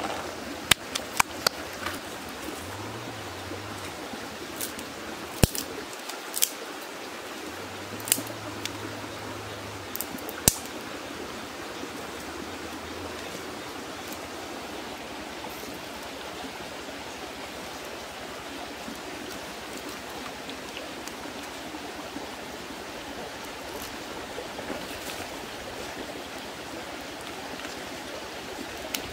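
Water of a stream running steadily. Several sharp knocks and clicks come in roughly the first ten seconds.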